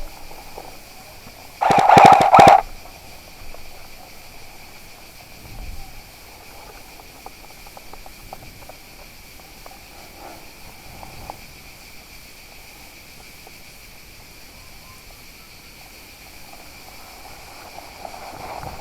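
A short burst of rapid airsoft gunfire, a fast string of clicks lasting under a second, about two seconds in, over a steady high buzz of insects.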